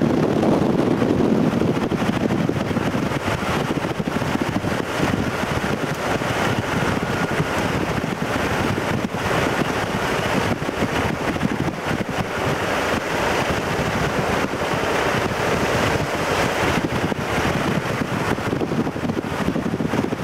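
Wind buffeting the camcorder's microphone: a steady rushing noise full of small crackles, with a low rumble of thunder dying away over the first couple of seconds.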